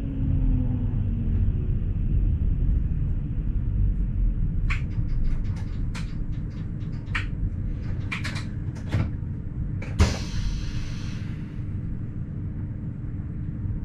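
Low rumble of a Wynental- und Suhrentalbahn ABe 4/12 'Saphir' electric railcar, heard from the driver's cab. From about five seconds in there is an irregular run of sharp clicks. About ten seconds in, a single knock is followed by a short hiss, and then the steady rumble continues.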